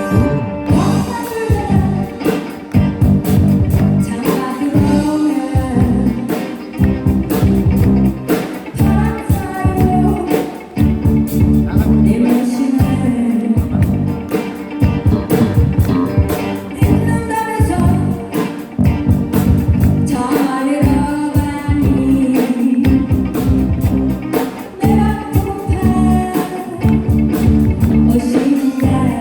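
Rock band music with a singer's voice over guitar and a steady beat.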